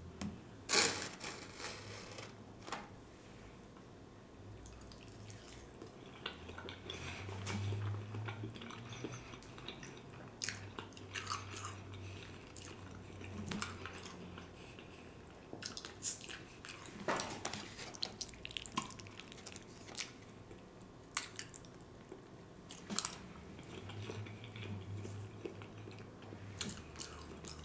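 A man chewing a mouthful of vegan smothered chicken with rice close to the microphone: soft, wet mouth sounds with scattered short clicks.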